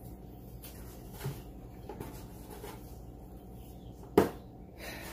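Faint clicks and handling noises of parts being worked under a car's hood, with one sharp knock about four seconds in, over a steady low hum.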